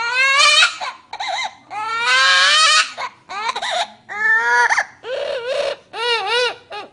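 Amazon parrot imitating a crying baby: a string of about eight loud, pitched wails, several sliding upward and some warbling, with short breaks between them.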